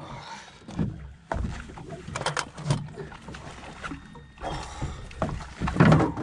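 Small fishing boat's motor running steadily at trolling speed under wind noise, with irregular knocks and clatter from handling gear in the boat, strongest about a second in, around two and a half seconds in, and near the end.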